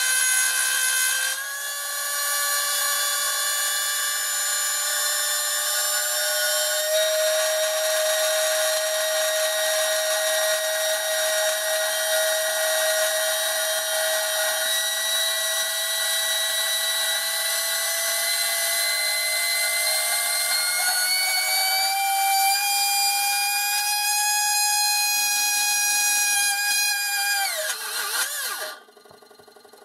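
Small brushed DC hobby motor whining at high speed as it is overvolted, its pitch stepping up several times as the voltage is raised. Near the end the whine falls sharply in pitch and stops as the motor burns out.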